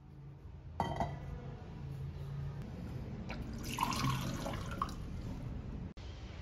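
Kitchen tap running, water splashing into and over a ceramic mug as it is rinsed, with a few light clinks of the mug. A knock sounds about a second in.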